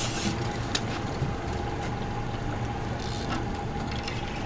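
A small boat's motor idling with a steady low hum, under the wash of water, with a few faint clicks.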